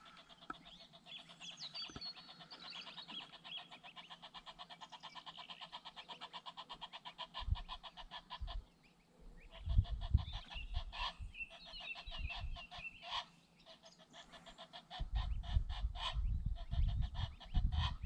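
Geese honking in a long, rapid run of calls, several a second, which breaks off and starts again, with high chirps over it. Wind buffets the microphone near the end.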